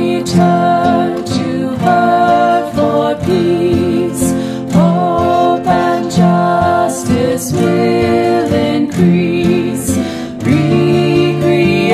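Three women's voices singing a hymn refrain in harmony, with instrumental accompaniment: 'O now return to Her for peace; hope and justice will increase.'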